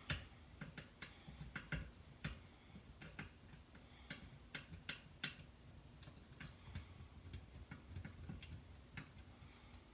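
Faint, irregular metal clicks of a hand tool working a long fine-thread screw out of a chainsaw's crankcase, about one or two clicks a second.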